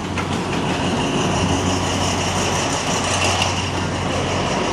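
Train passing close by on the bridge: a steady low engine drone over a rumble, with a steady high-pitched whine above it.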